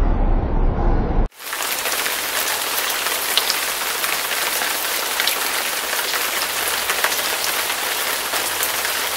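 Steady hiss of rain with scattered drop-like ticks, starting abruptly about a second in. Before it, a loud low rumble.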